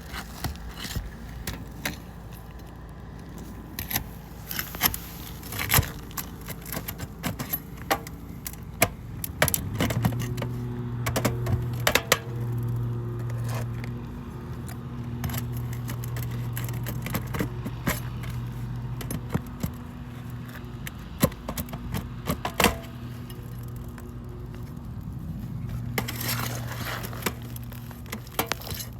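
Scattered clicks, taps and light scrapes of hand tools working at asphalt shingles as the roofer tries to lift them. About ten seconds in, a steady low mechanical hum sets in and carries on under the clicks.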